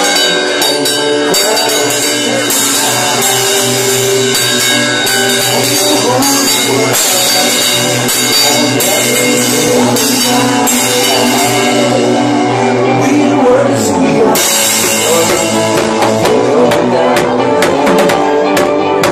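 Loud house music playing over a nightclub sound system, with a steady bass line and beat. About three-quarters through, the bass drops out for about a second and then comes back in.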